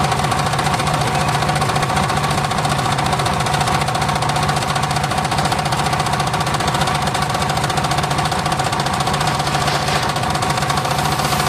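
Homemade engine-driven circular saw rig running steadily, with a fast even engine chug and a steady high whine on top.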